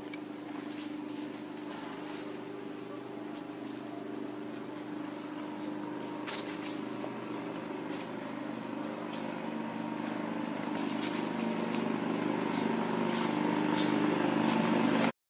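A steady low mechanical hum, like a motor running, that grows louder toward the end, over a steady high buzz of insects, with a few faint scattered clicks.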